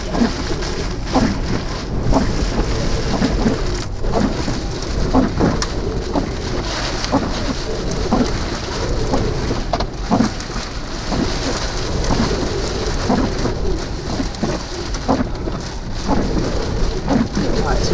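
Heavy rain hitting the storm-chase vehicle in many sharp individual drop impacts, over a steady low rumble of the thunderstorm.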